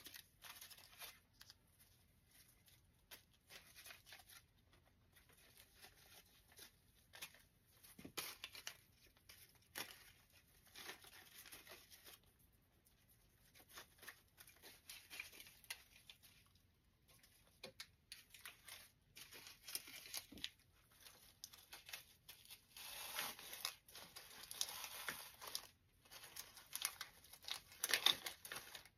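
Faint, irregular rustling and crackling of artificial floral stems and leaves and the dry grapevine wreath as stems are bent and pushed into the wreath, louder and busier in the last few seconds.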